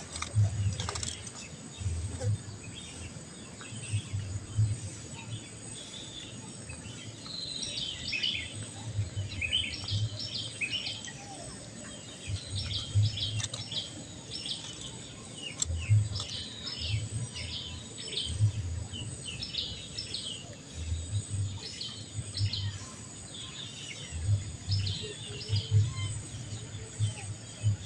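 Small birds chirping in short, quick clusters, again and again, over a steady faint high tone. Low rumbles on the microphone come and go underneath.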